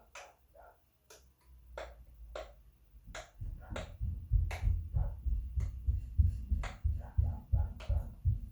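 Bubbles of a silicone pop-it fidget purse being pressed one after another, a sharp pop about twice a second. A low rubbing and thudding from handling grows loud from about three seconds in.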